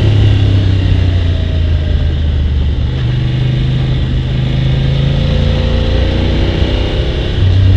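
Motorcycle engine running under way, with wind and road noise on the onboard microphone. The revs drift up through the second half, and the engine gets louder as it accelerates near the end.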